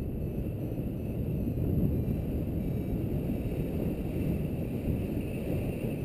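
Airflow in paragliding flight buffeting the camera's microphone: a steady low wind rumble that swells and eases slightly.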